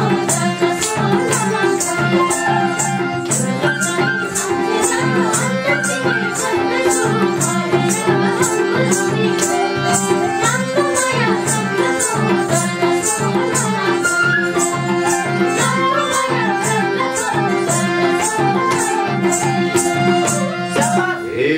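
Nepali folk dohori music between sung verses: a harmonium holding a steady drone under a flute melody, with a steady percussion beat of about two strokes a second.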